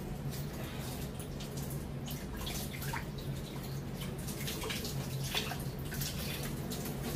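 Kitchen tap running into a stainless-steel sink while a fish is rinsed and handled under the stream, with irregular splashes and drips. A steady low hum sits underneath.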